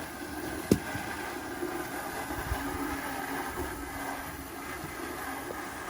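Steady mechanical drone, like a motor or engine running, with a single sharp click just under a second in.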